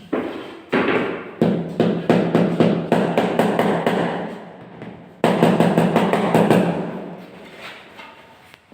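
Rubber mallet tapping marble floor tiles down into their mortar bed: a couple of slower knocks, then a run of quick taps, a sudden second run about halfway through, then the taps fade.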